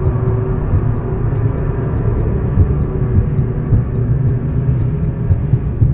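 Loud, steady low rumbling drone, heavy in the bass, that cuts off suddenly at the end.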